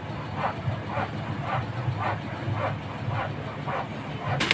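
An animal calling over and over, short calls about two a second, over a low steady hum, with a sharp click near the end.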